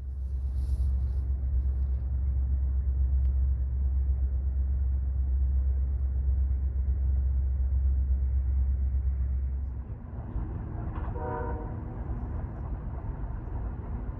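A heavy low rumble for about ten seconds that cuts off abruptly, then a short horn-like blast a little after eleven seconds.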